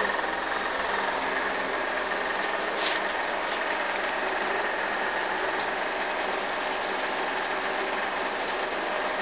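Steady machine noise, like a running motor, with a faint click about three seconds in.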